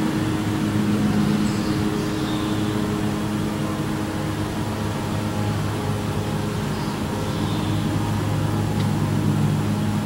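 A steady low mechanical drone, like a motor or engine running, goes on throughout, with a few faint high bird chirps over it.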